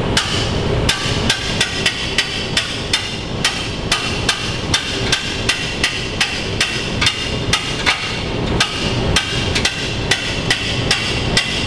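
Hand-cranked duct jack's winch ratchet clicking steadily, about three clicks a second, as it is cranked to raise a greenhouse unit heater.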